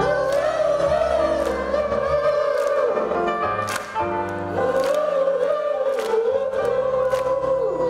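Live concert music over a sound system: a sung melody held in two long, wavering phrases, over drum hits and bass.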